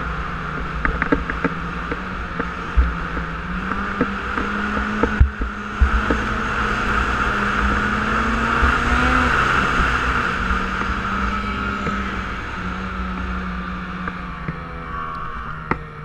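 Snowmobile engine running under way across snow, its pitch and loudness climbing to a peak about nine seconds in and then easing off as it slows. Occasional knocks are heard as the sled goes over bumps.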